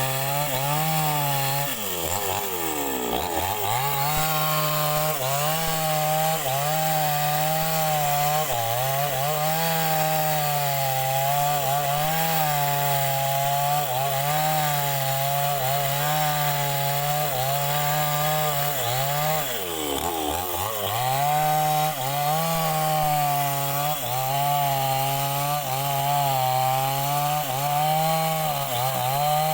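Two-stroke chainsaw cutting through hardwood at high revs, its engine note wavering about once a second as the cut loads it. Twice the pitch drops sharply and climbs back.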